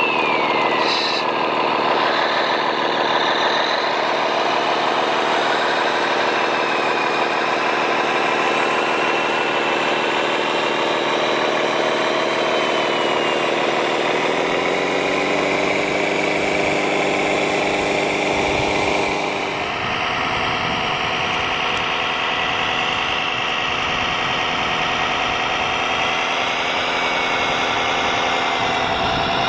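Radio-controlled model construction vehicles running: a steady engine-like hum under motor and gear whine that rises and falls in pitch. The sound shifts to a different machine about twenty seconds in.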